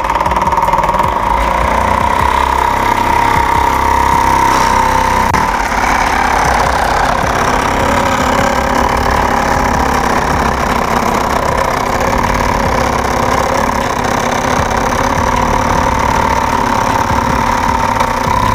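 Homemade MDF scroll saw driven by a 775 DC motor, running with a steady high whine as its reciprocating blade cuts through a PVC sheet. The whine weakens for a few seconds in the middle, then steadies again.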